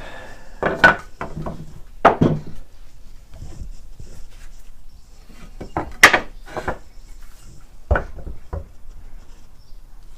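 Tools and metal parts being handled on a workbench: a handful of knocks and clatters at irregular intervals, the loudest about six seconds in.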